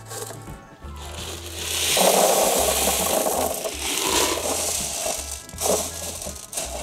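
Expanded clay pebbles poured from a plastic tub into a glass tank: a dense rattling rush, loudest from about two to four seconds in, then a few shorter rattles as they are spread by hand. Background music with a bass line plays throughout.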